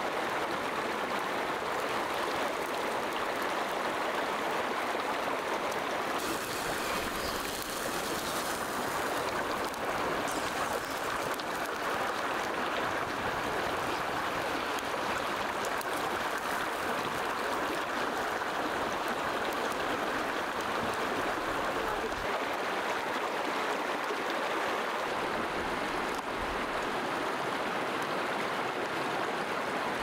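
A shallow stream running over rocks: a steady rush of flowing water.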